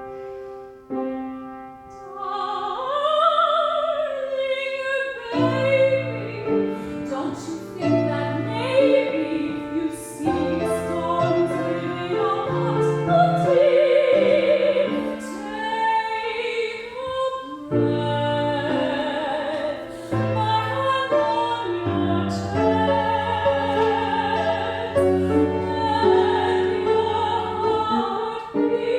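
Operatic singing with strong vibrato over piano accompaniment; the voice enters about two seconds in on a rising phrase.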